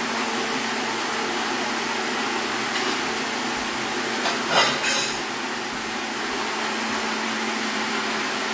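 Small electric blender running steadily with a constant motor whine, blitzing a wet chilli-and-lime marinade to a smooth paste. There is a brief louder surge about halfway through.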